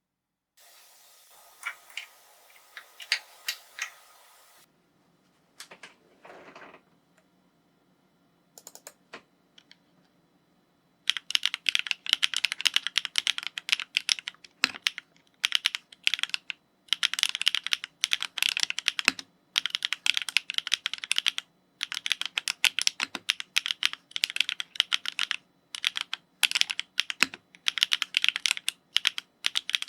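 Typing on a Constance TKL mechanical keyboard with Chosfox × Ragna switches and GMK Shaded keycaps. A few scattered clicks over a faint hiss give way, about eleven seconds in, to fast steady typing in runs of rapid keystrokes broken by short pauses.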